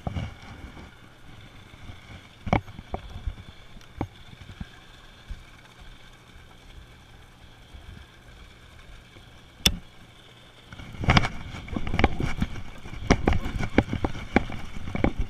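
Boat on the water: a faint steady hum with a few sharp clicks, then from about eleven seconds in loud, irregular rumbling noise with spiky knocks on the microphone.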